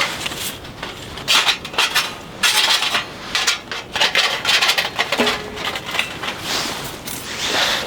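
Dry firewood being split by hand: repeated sharp knocks and clusters of splintering cracks as the seasoned wood splits apart.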